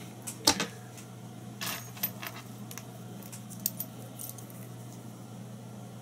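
Small metal fly-tying tools being handled: a series of light metallic clicks and clinks, the sharpest about half a second in and more scattered over the next few seconds, over a steady low hum.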